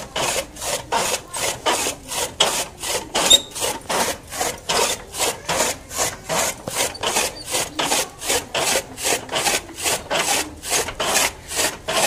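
A hand-turned toka (chaff cutter), its flywheel-driven blades slicing green fodder stalks in a steady rhythm of about three rasping cuts a second.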